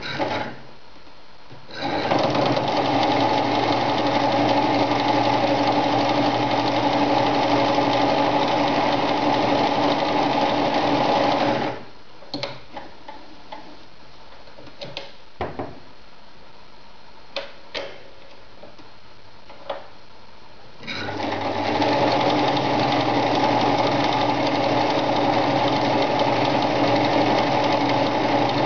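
Victoria ZZ-580 zigzag sewing machine stitching through layered denim: it runs steadily for about ten seconds, stops for several seconds with a few scattered clicks, then runs steadily again for about seven seconds.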